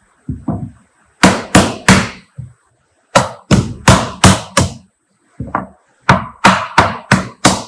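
Hardwood mallet knocking on a cedar buffer block against a canoe rib, driving the rib into a birch bark canoe. The sharp knocks come in three runs of about three to five strikes, roughly three a second. Tapping the rib in this way stretches the bark tight against the hull.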